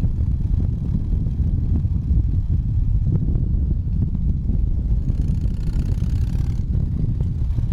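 Harley-Davidson V-twin motorcycle engine running steadily during a ride, a dense low rumble. About five seconds in, a hiss rises over it and cuts off a second and a half later.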